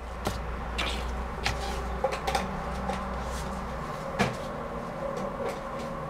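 Light knocks and clicks at irregular intervals, the sharpest about four seconds in, over a low steady hum that stops at about the same moment.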